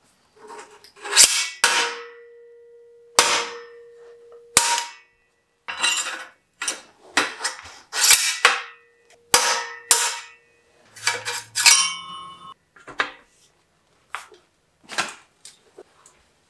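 Metal bicycle parts knocking and clanking as a fork steerer and headset parts are fitted into the head tube of a steel Wicked Fat Chance frame in a repair stand. There are many sharp knocks, a few of which leave the tubing ringing with a steady tone for two or three seconds.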